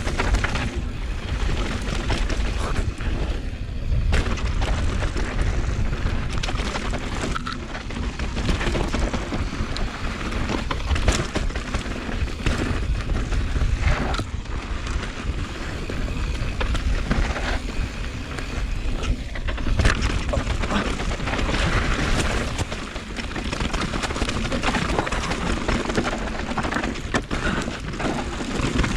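Downhill mountain bike descending a rough dirt trail: heavy wind rumble on the microphone, with the tyres and frame clattering over bumps throughout.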